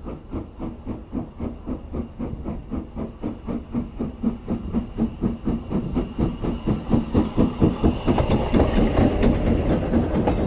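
Austerity 0-6-0 saddle-tank steam locomotive working past at low speed. Its even exhaust beats come about five a second with a steam hiss, growing louder as it draws close.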